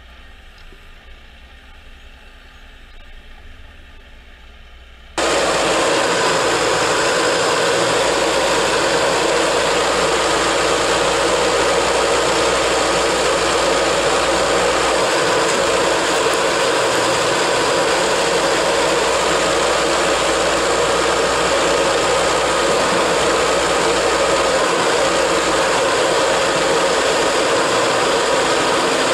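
Jarcrac Dual tracked forwarder's engine running steadily while its loader crane lifts and swings logs onto the pile. It is faint at first, then about five seconds in it becomes suddenly much louder and holds steady.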